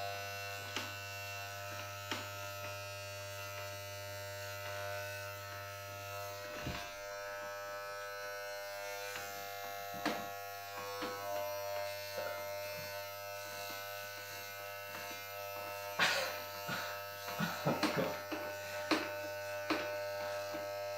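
Corded electric hair clippers running with a steady buzz while cutting a fade, with a few faint clicks and taps along the way.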